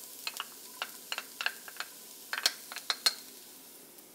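Irregular clicks and taps of a utensil against a small metal cup and a frying pan as chopped shallots are tipped into hot oil, over a faint sizzle of frying garlic.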